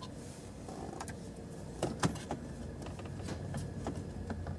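Scattered clicks and knocks from screws and plastic steering-column trim being worked loose by hand, the sharpest about two seconds in.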